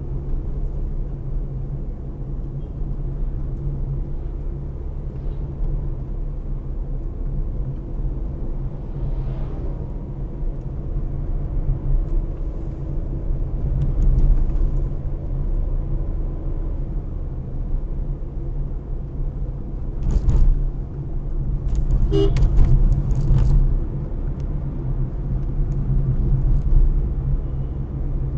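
Car driving on a paved road, heard from inside the cabin: a steady low rumble of engine and tyre noise. About three-quarters of the way through there is a short horn toot among a few brief knocks.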